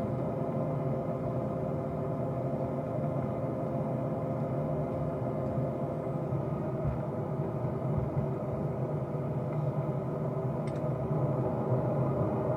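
Steady vehicle cabin drone with a constant engine hum, rising slightly in level near the end.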